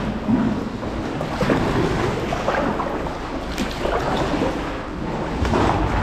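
Sea water sloshing and lapping around kayaks inside a sea cave, with splashes from paddle strokes about once a second.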